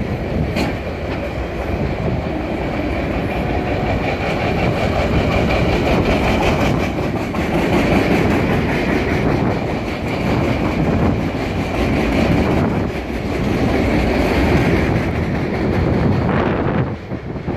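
Freight train of loaded flatcars rolling past, a steady rumble of steel wheels on rail with a repeating clack as the wheels cross rail joints.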